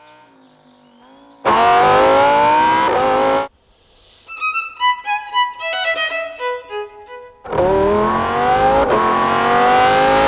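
Lamborghini Huracán Evo Spyder's V10 engine revving hard in two loud pulls, its pitch rising through each, with a brief break like a gear change partway through the second. Between the pulls, short violin phrases play.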